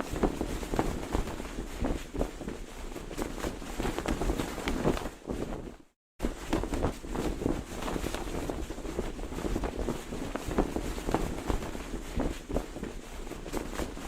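Cloth flag flapping hard in strong wind: a continuous rush of wind with rapid, irregular snaps of the fabric. The sound cuts out completely for a split second about six seconds in, then resumes.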